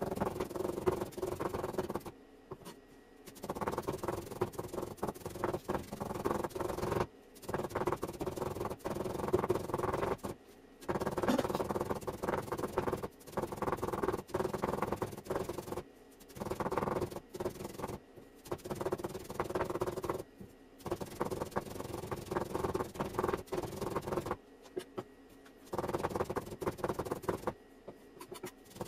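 Rubbing and handling noises from hands working the gyoza, coming in bouts of a few seconds with short pauses between.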